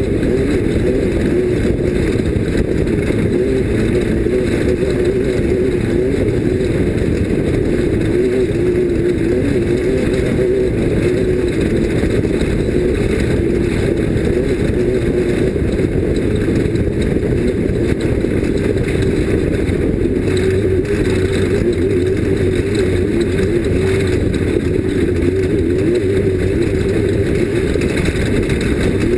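Off-road race vehicle's engine running hard and steadily at speed. The low, dense drone wavers slightly in pitch without any big revs or pauses.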